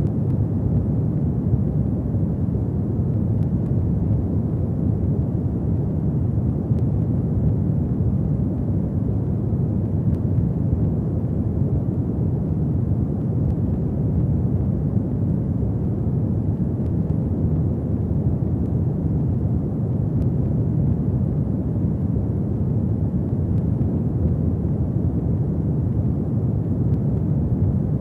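Fireplace fire burning: a steady low rumble with a few faint crackles.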